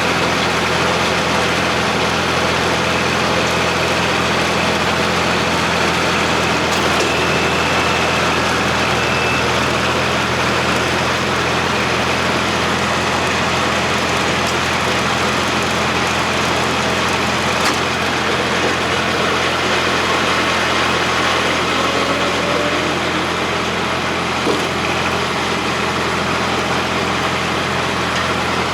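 Tractor engine running at a steady speed while driving a Siromer P10 round baler, with the baler's machinery working behind it and a couple of faint clicks.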